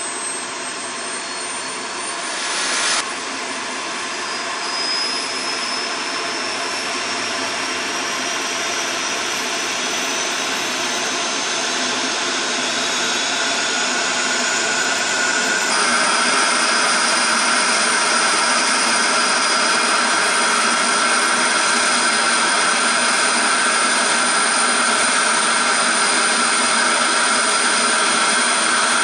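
Lockheed C-5M Super Galaxy's turbofan engines running loud and steady. A high whine climbs slowly in pitch as the engines spool up, and the sound steps up in loudness about halfway through.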